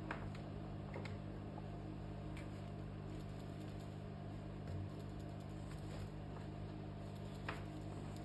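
Faint scattered clicks and taps from hands handling an opened laptop and its parts, a few times, over a steady low hum.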